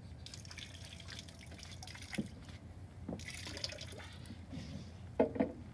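Liquid poured from a glass bottle splashing and trickling onto a boat's deck as a libation, in two pours with a short break between them. Two knocks follow near the end.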